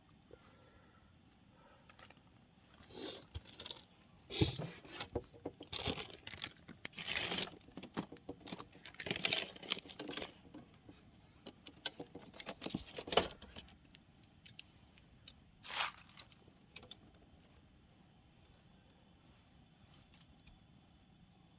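Handling noises: a run of short rustles, clinks and crinkles for about ten seconds, then one more a few seconds later.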